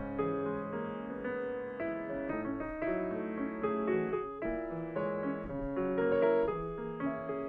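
A grand piano played solo: a classical piece with a melody of held notes over moving lower notes, at an even loudness.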